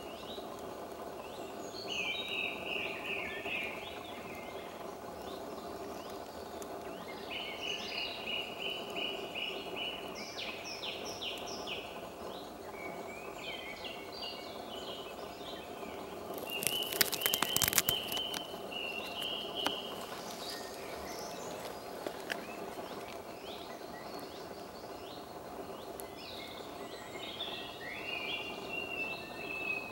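Woodland birds singing, many short repeated song phrases one after another, over steady background noise. About halfway through comes a brief patch of sharp crackling clicks, the loudest sound in the stretch.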